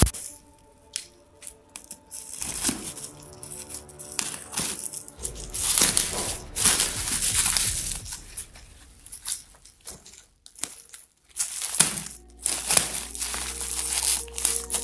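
Black plastic bubble wrap crinkling and rustling in bursts as hands pull a parcel's wrapping open, over background music.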